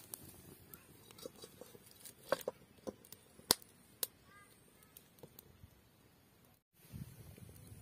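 Dry twigs crackling in a small wood fire, with scattered sharp pops, most of them between about two and four seconds in.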